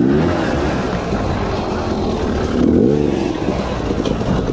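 Enduro dirt bike engine revving in sharp bursts as it climbs over rocks, the pitch rising steeply twice, near the start and again about three seconds in.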